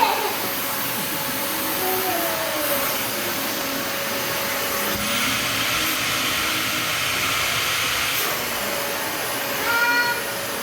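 Vacuum cleaner running steadily with a constant whine; its hiss grows brighter for about three seconds in the middle.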